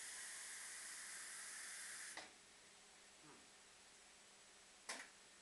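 Kitchen tap running water into a plastic cup: a steady hiss that cuts off suddenly about two seconds in. A short, sharp noise follows near the end.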